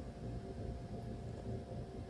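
Steady low room hum, a machine-like drone with a few faint constant tones and no distinct events.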